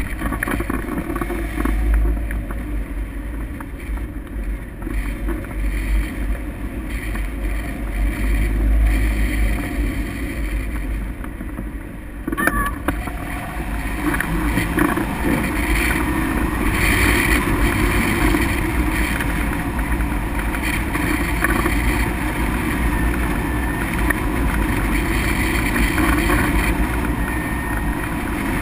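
Airflow buffeting the microphone of a camera mounted on a hang glider in flight: a steady, heavy wind rush, dipping briefly about halfway through and then growing louder.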